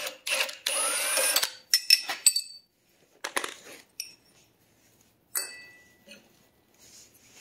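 Cordless impact wrench running for about a second with a gliding motor whine, spinning off the 19 mm flywheel nut of a Honda GX160 engine. Then a few short metallic clinks and knocks as the loose nut and starter cup are handled.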